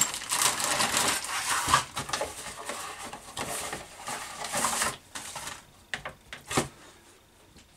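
Crinkling of a clear plastic bag of model-kit sprues and rustling of the cardboard kit box as they are handled and pulled out, densest over the first two seconds, then thinning to a few soft knocks and paper rustles near the end.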